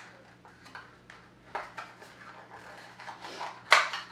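A few light clicks and knocks of small kit parts being handled and set down, the loudest about three and a half seconds in.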